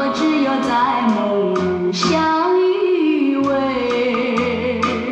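Recorded song played back through Yamaha NS-500 two-way speakers with beryllium-dome tweeters, driven by a Yamaha B-2 V-FET power amplifier: a woman singing a flowing melody over bass notes and a light regular beat.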